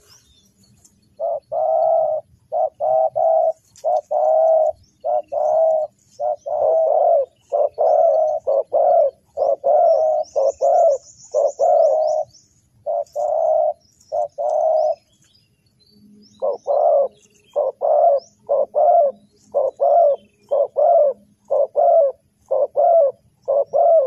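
Spotted dove cooing: a long run of short, low coos in quick succession, breaking off for about a second and a half about fifteen seconds in, then starting again. A faint high twitter from a small bird is heard about ten seconds in.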